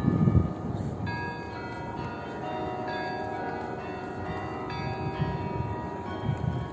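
The Kremlin chimes (kuranty) on the Spasskaya Tower ring a slow sequence of bell notes, each note ringing on under the next. A low outdoor rumble comes near the start.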